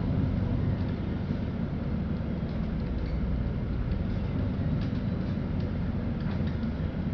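Inside a LiAZ-5292.65 city bus on the move: a steady low rumble of engine and road noise, with faint light rattles and ticks.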